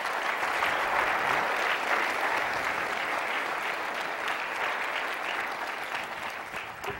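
Audience applauding: sustained clapping that begins as the talk ends and eases off slightly toward the end.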